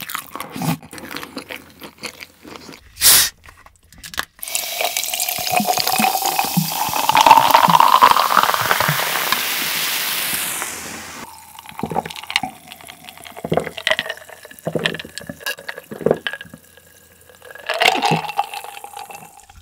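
Cola opened with a brief hiss, then poured from a plastic bottle into a glass mug: a gushing pour whose pitch rises as the glass fills. The poured cola then fizzes and crackles, and there are gulps near the end as it is drunk.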